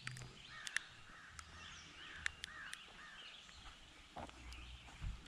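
Birds chirping and calling outdoors, many short repeated chirps, with scattered sharp clicks and a soft thump about four seconds in.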